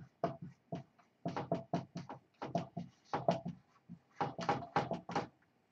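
Dry-erase marker writing on a whiteboard: a quick run of short marker strokes, broken by brief pauses about a second in and again near four seconds in.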